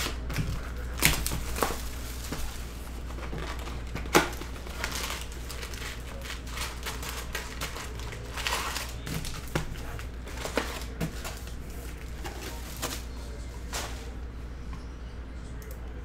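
Plastic shrink wrap crinkling and tearing off a Panini Prizm trading-card box, then the foil card packs rustling and clicking as they are pulled out and set down. The handling noise comes as irregular sharp clicks and short crinkles over a low steady hum.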